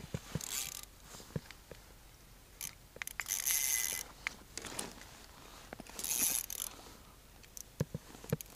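Ice fishing reel whirring and ratcheting in three short spurts, with scattered small clicks between, while a hooked trout is played.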